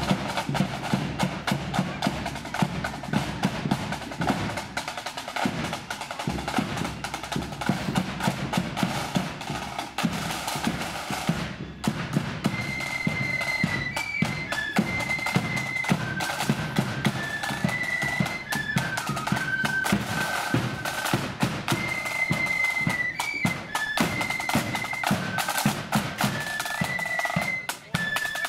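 Marching flute band: snare drums and a bass drum beat a fast march rhythm. About halfway through, high flutes come in playing a melody over the drums.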